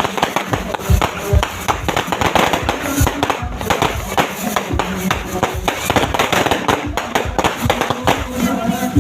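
Many fireworks and firecrackers going off at once, a dense, continuous crackle of overlapping pops and bangs.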